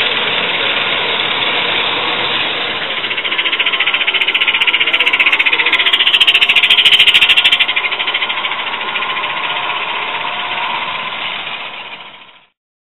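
Gauge 1 live-steam locomotive running under steam, its exhaust chuffing rapidly. It grows louder about four seconds in as the engine comes close, then dies away and fades out shortly before the end.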